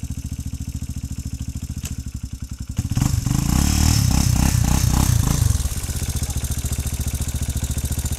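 Yamaha Raptor 350 quad's single-cylinder four-stroke engine idling with an even beat, then opened up and louder for about three seconds before dropping back to idle.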